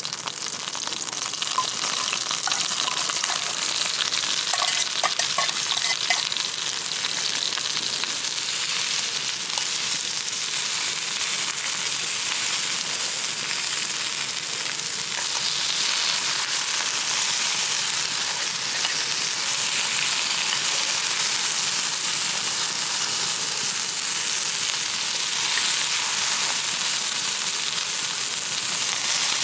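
Food frying in a pan over a campfire: a steady, dense sizzle with fine crackles running through it.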